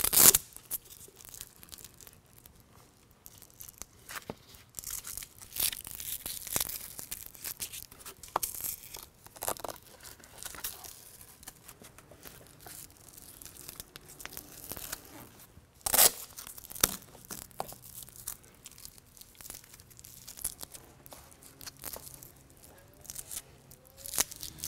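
Nylon straps of a mesh sun shade being pulled tight through their buckles: scattered short zipping rasps and fabric rustling, with two loud sharp rips, one just after the start and one about two-thirds of the way through.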